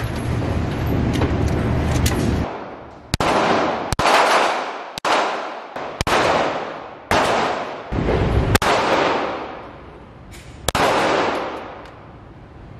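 Semi-automatic pistol fired at an indoor concrete range: about seven single shots at an uneven pace of roughly one a second, each ringing out in a long echo. A low rumble runs through the first couple of seconds before the first shot.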